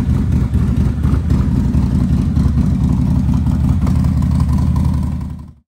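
Harley-Davidson Fat Bob's V-twin engine idling steadily with a deep, low exhaust note, fading out near the end.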